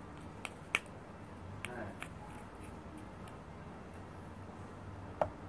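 A few light, sharp clicks and taps from plastic slime-making containers being handled, over quiet room tone, with a faint voice in the background about two seconds in.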